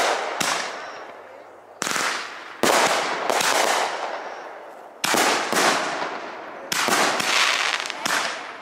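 Aerial fireworks bursting overhead, about six sharp bangs a second or two apart. Each bang is followed by a fading crackle of the sparks.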